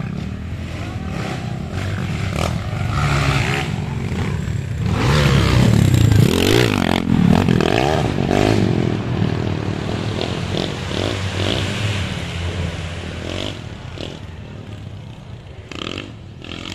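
Four-stroke dirt bike engines revving on the track, rising and falling in pitch. They are loudest about six seconds in and fade away near the end.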